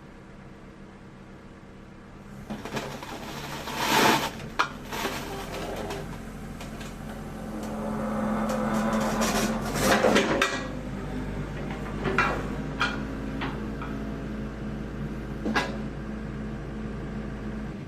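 Kobelco SK75UR-3ES excavator's diesel engine running steadily, then coming under more load a couple of seconds in as the machine is worked. Several loud metallic clanks and knocks from the machine are scattered through the rest.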